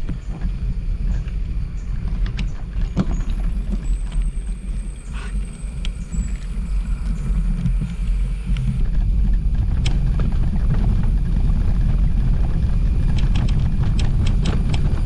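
Low rumbling wind and road noise on a bicycle-mounted camera's microphone while riding, with scattered light clicks and rattles from the bike.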